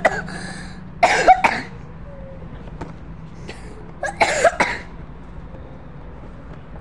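A boy coughing in two short bouts about three seconds apart, each with a few quick coughs.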